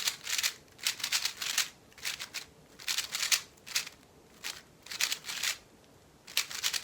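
A 3x3 speedcube's plastic layers clattering as they are turned fast, in short bursts of quick moves with brief pauses between, running the J perm algorithm.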